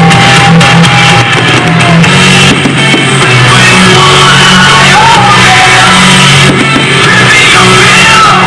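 Loud rock music with shouted singing and drums over a repeating bass line.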